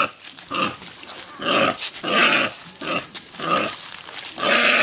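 A live pig, slung upside down from a carrying pole, squealing and grunting over and over in distress, a cry about every half second with a longer, louder squeal near the end.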